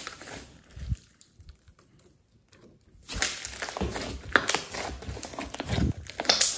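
Hands squeezing and kneading thick glossy slime mixed with clay, giving wet squishes and a dense run of small pops and crackles. It goes nearly quiet for about two seconds after the first second, then the crackling picks up again.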